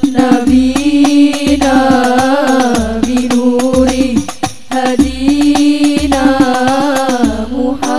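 Al-Banjari hadrah performance of a sholawat: girls' voices singing in unison over a busy beat of hand-struck terbang frame drums, with a deep low beat about once a second. There is a brief break in the singing and drumming about four seconds in.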